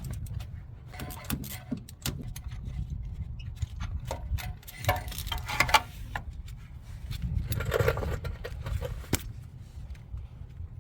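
Socket wrench and hand tools working on a truck's spark plug: scattered sharp metal clicks and clinks over a low rumble.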